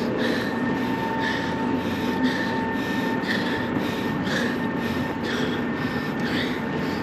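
Steady rumble and hum of road traffic on the bridge, with walking footsteps on the concrete path recurring about once a second.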